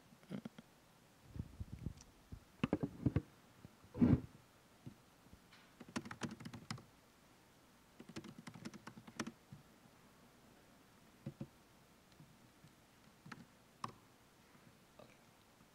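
Typing on a computer keyboard: short bursts of keystrokes separated by pauses, thinning to a few single taps in the second half.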